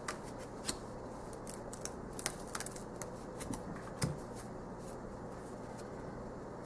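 New gilt-edged tarot cards being handled and laid down on a cloth-covered table: scattered soft clicks and slides of card stock, with a sharper tap about four seconds in.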